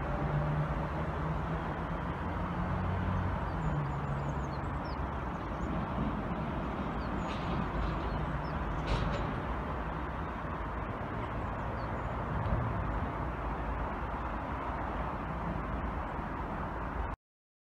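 Distant locomotive moving away down the tracks, a low engine hum in the first few seconds fading into a steady outdoor rumble, with a few faint bird chirps.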